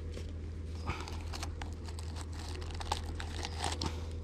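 Guava leaves rustling and crinkling as a handful is pulled out of the top of a plastic jar, with many quick irregular crackles.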